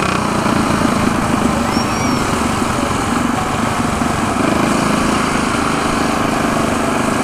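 Mini bike's small engine running steadily while riding at cruising speed, with wind rushing past.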